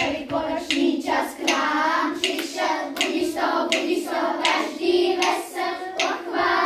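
A group of children singing together, with hand claps on a steady beat under a second apart.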